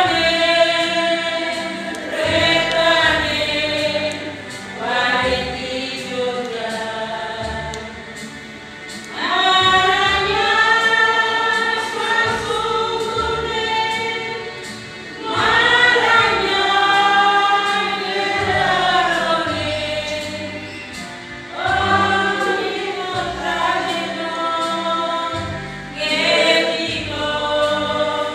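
Church choir singing a hymn in the Kayu Batu language, the voices together in long phrases that swell at each new line and ease off before the next.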